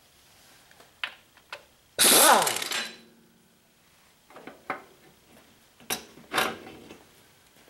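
Air impact wrench run in one short burst, its whir falling in pitch as it spins down. Sharp metal clicks and knocks come before and after it as parts inside the tractor's bell housing are handled.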